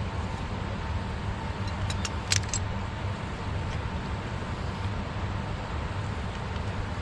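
Steady rush and low rumble of a flowing river, with a brief cluster of light, sharp clicks about two seconds in as fishing gear is handled.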